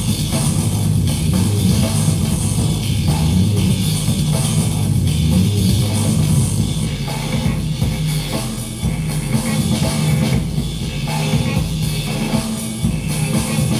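Rock music with guitar and drums, without singing.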